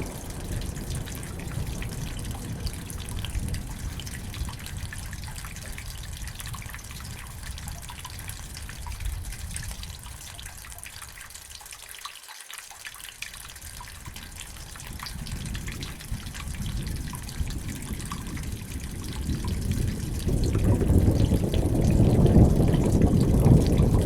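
Steady rain with dripping water. A low thunder rumble dies away over the first half, and another rumble builds and grows louder from about 20 seconds in.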